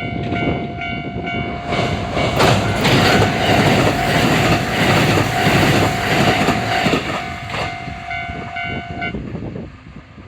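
A Japanese level crossing's electronic warning bell dings about three times a second while a Kintetsu 80000 series Hinotori electric limited express train passes. Wheels clack over the rail joints as it goes by. The train noise fades near the end, and the bell stops about nine seconds in.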